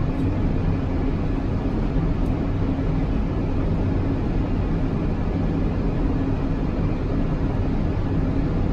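Steady airliner flight-deck noise on final approach, just past the decision-height callout: an even rumble of engines and airflow with a constant low hum.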